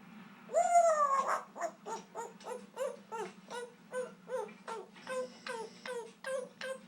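Congo African grey parrot vocalising on request to sing: one long call that rises and then falls, then a run of short repeated pitched notes, about three a second, quickening to about four a second near the end.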